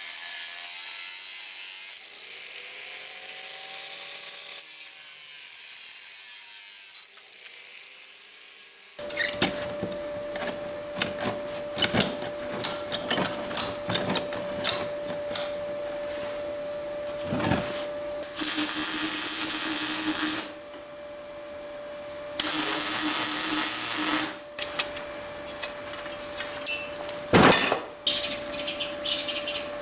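Steel metalworking with power tools. An angle grinder runs on steel, then from about nine seconds in come many sharp metal knocks over a steady hum. Two loud bursts of a power tool follow, about two seconds each.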